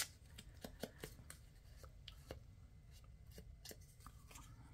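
Faint, irregular soft taps of a foam ink blending tool dabbing ink onto the edges of a paper butterfly cutout, with light paper handling and a sharper click at the very start.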